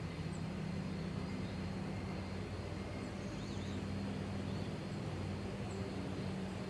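Steady low outdoor rumble, with a few faint bird chirps scattered through it.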